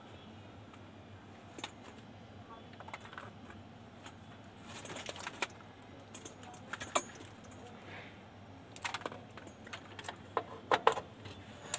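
Irregular light clicks and clatter from hands handling an open AV receiver and its cables, with a few sharper knocks near the end.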